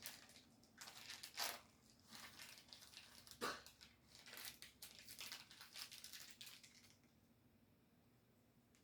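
Faint crinkling and tearing of packaging as a small Funko Pop figure is unwrapped from an advent calendar, in irregular rustles with a few sharper crackles. It stops about seven seconds in.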